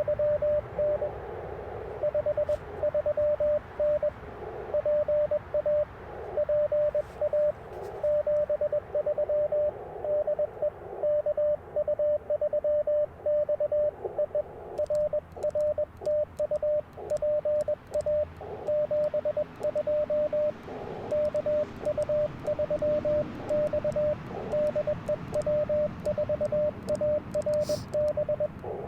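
Morse code (CW) from an Icom IC-705 transceiver on the 30-meter band: a steady tone a little under 600 Hz keyed on and off in dots and dashes. Fainter signals and receiver hiss run beneath it.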